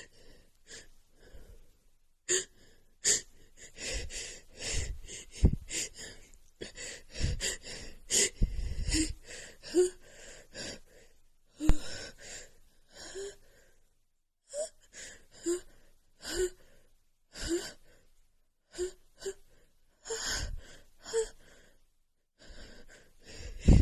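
A woman's sneeze build-ups: repeated short, catching gasps and wheezy inhales as a sneeze tickle builds, broken by several sharper, louder bursts, sneezes stifled and held back.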